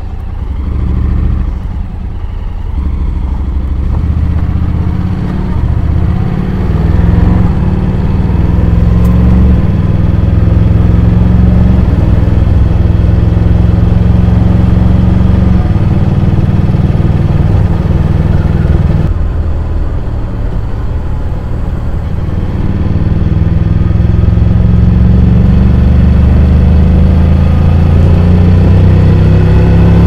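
Honda X-ADV 750's parallel-twin engine running under way, heard from a camera on the bike. It builds over the first several seconds, eases off briefly around twenty seconds in, then picks up again.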